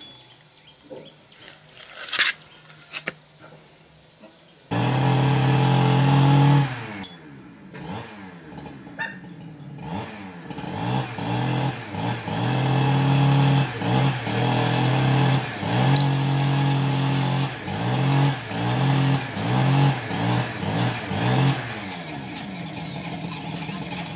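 A few light clicks of handling, then about five seconds in a motorcycle engine comes in suddenly, loud, and is revved over and over, its pitch rising and falling about once a second.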